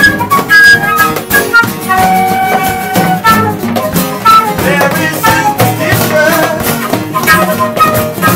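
Live acoustic band music: a woodwind plays the melody in held and moving notes over a strummed acoustic guitar.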